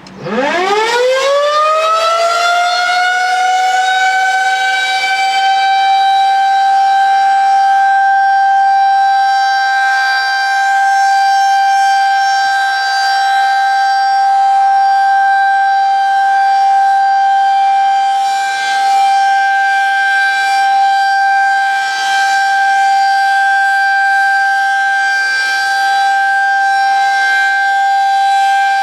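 Federal Signal 2001-SRN outdoor warning siren starting up for a test: it winds up from a low pitch to its full tone in about four seconds, then holds one steady, loud wail.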